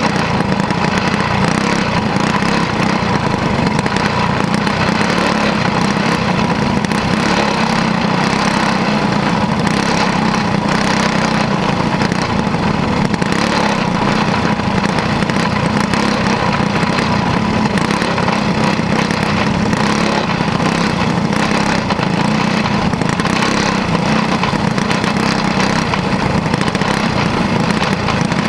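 Caged dirt-track racing kart's small engine running steadily at racing speed, recorded from the onboard camera on the kart.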